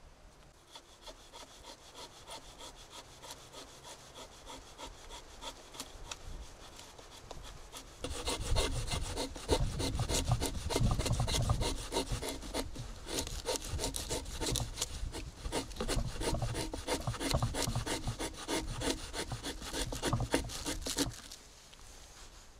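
Blade shaving curls from a wooden stick to make feather-stick kindling on a Fiskars X7 hatchet: a rapid series of scraping strokes. They are faint at first, turn much louder about a third of the way in, and ease off shortly before the end.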